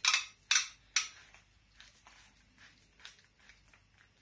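Black fitting of a folding walking cane being twisted by hand: three sharp clicks about half a second apart, then a few faint ticks as it keeps turning.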